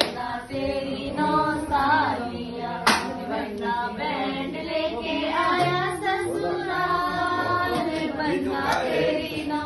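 Several voices singing, with music. There is one sharp knock about three seconds in.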